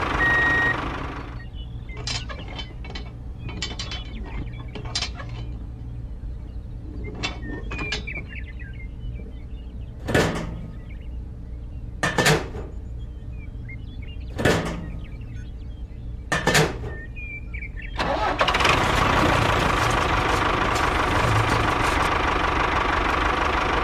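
A toy tractor's small motor running steadily for the last several seconds, with a steady whine. Before that there is a low hum with light clicks, and four sharp noises about two seconds apart.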